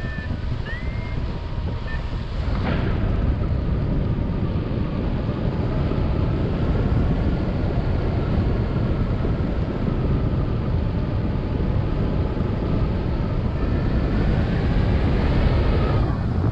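Wind rushing and buffeting over the microphone of a paraglider in flight, a steady loud roar of airflow with no break.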